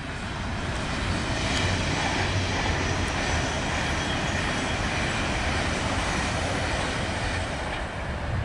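A Virgin Trains Pendolino electric express passing at speed: a steady rush of wheel and rail noise that builds over the first second and eases near the end.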